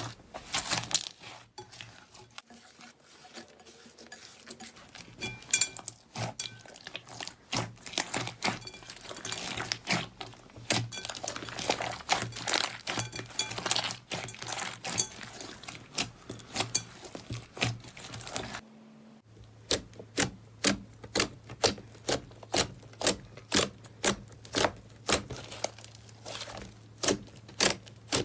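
Fluffy clay slime being squeezed and poked by hand, making wet crackles and pops; partway through, the pops settle into a steady run of about two a second.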